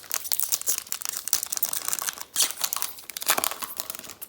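Foil trading-card pack wrapper crinkling and tearing as it is handled and opened by hand, a dense crackle with louder rips about two and a half and three and a half seconds in.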